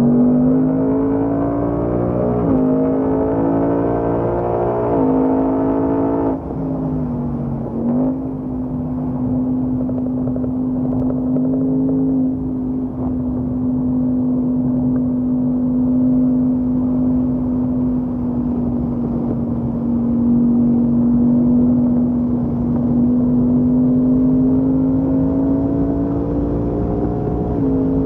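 Ford Mustang Mach 1's 5.0-litre V8, heard from inside the cabin on track: it pulls hard with the revs climbing through two quick upshifts, then lifts off sharply about six seconds in. It holds a steady note for a long stretch, then climbs again and shifts up near the end.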